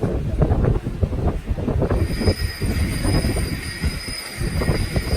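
Metal parts clanking and knocking against each other, with a steady high-pitched metallic squeal joining about two seconds in.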